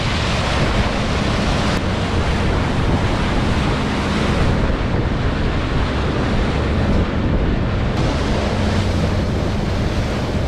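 Wind buffeting the microphone and sea water rushing past the hull of a whale-watching boat under way, with the steady low hum of its engine underneath.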